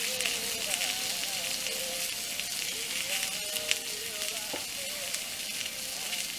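Steak sizzling steadily in a small cast-iron frying pan on a camp stove, with one sharp click about three and a half seconds in. A radio plays music faintly in the background.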